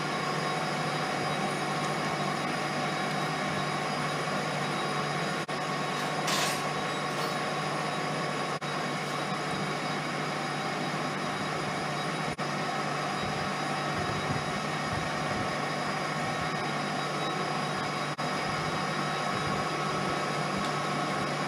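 Homemade lathe running steadily: an even motor hum and whir. There is a brief metallic clink about six seconds in, and the sound breaks off for an instant a few times.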